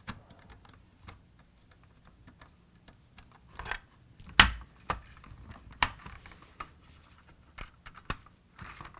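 Scattered clicks and taps of hard plastic being handled, the loudest a sharp knock about halfway through, with no voice phrase from the toy's sound unit.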